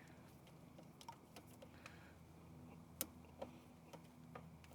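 Near silence with scattered faint clicks and taps as a cable is worked through a boat's scupper. One click about three seconds in is a little louder.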